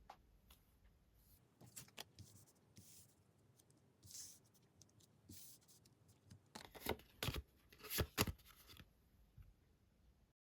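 Tarot cards being handled: soft scattered rustles and slides of card on card, with a run of sharper taps and snaps in the second half.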